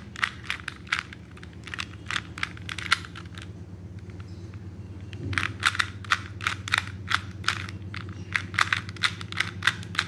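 A 2x2 Rubik's cube being turned quickly by hand: rapid plastic clacking of the layers, several turns a second, with a pause of about two seconds in the middle.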